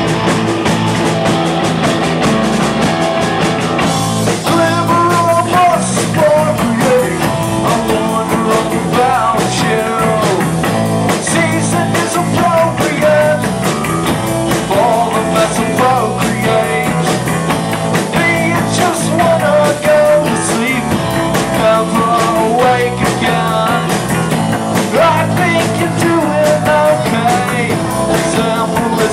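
Live rock band playing through guitar amplifiers: distorted electric guitars over a drum kit, with a voice singing.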